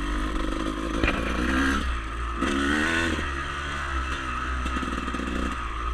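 Dirt bike engine running under way, its pitch rising and falling as the throttle is worked.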